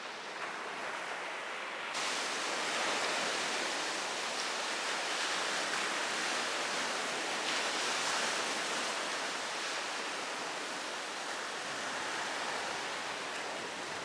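Sea surf washing onto a sandy beach, a steady rush of breaking waves that grows louder about two seconds in.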